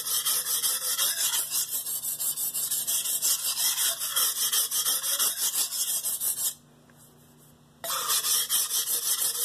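A Mercer nakiri blade of X30Cr13 steel is stroked quickly back and forth on a wet 320-grit Shapton Pro whetstone to raise a burr, making a rhythmic gritty rasping. The strokes stop for about a second past the middle, then resume.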